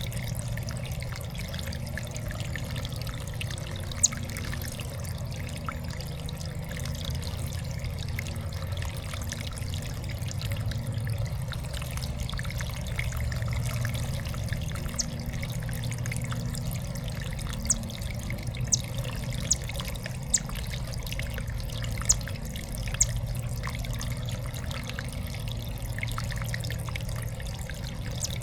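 Water trickling and splashing steadily in a backyard birdbath fountain, with a handful of short, sharp ticks, most of them in the second half.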